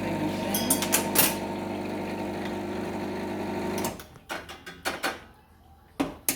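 Rancilio espresso machine's pump running steadily with a hum, pushing water through the group head, then stopping about four seconds in; a few short clicks and knocks follow.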